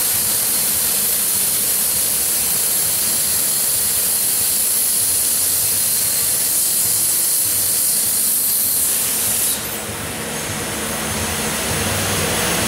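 Plasma cutting torch on a gantry plasma table cutting a large dished dome head: a loud, steady hiss of the arc and gas jet. About nine and a half seconds in the arc cuts off suddenly, leaving a softer rushing of air that slowly grows louder.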